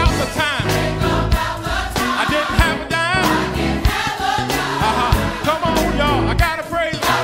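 Gospel music: voices singing with wavering vibrato over drums and a heavy bass line.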